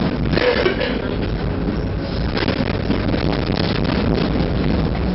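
Tram running, heard from inside the car: a steady low rumble with scattered rattles and knocks.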